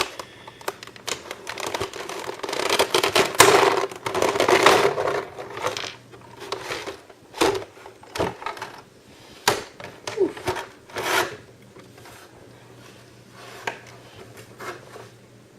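Plastic packaging being handled: crinkling and rustling for the first few seconds, then a run of sharp clicks and knocks as the action figure is worked out of its plastic tray, tapering off to a few faint ticks. A steady low hum runs underneath.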